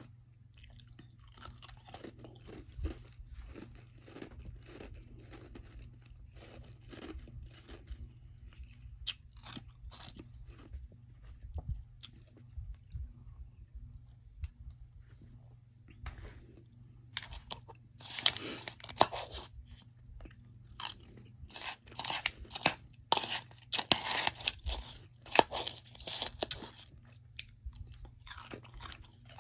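Close-up chewing of soft freezer frost: many small crunches, softer in the first half and then louder and denser from a little past the midpoint. A steady low hum runs underneath.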